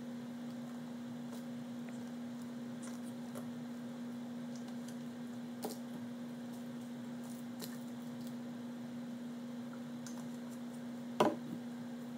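Steady low hum under room tone, with a light tap about six seconds in and a louder short knock near the end, from plastic squeeze bottles being handled and set down on a tabletop.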